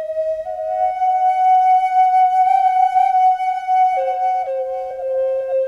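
Native American flute music playing long held notes, stepping up a little about half a second in and dropping to a lower held note about four seconds in, with short ornamental flicks around it.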